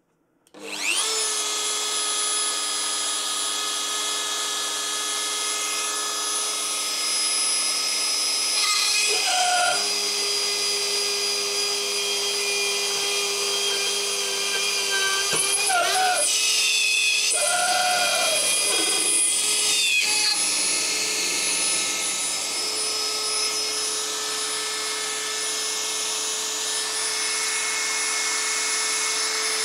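Dremel 4000 rotary tool in its drill-press attachment spinning up about a second in and running as a steady high whine while a 2.5 mm bit drills a hole into an aluminium heatsink. The tone shifts and wavers a few times in the middle as the bit works into the metal.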